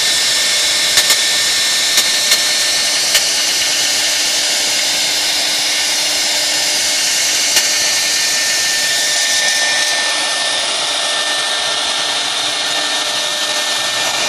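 CNC router spindle cutting a relief carving into a wooden board: a steady high whine and cutting noise. There are a few sharp ticks in the first few seconds and one more midway.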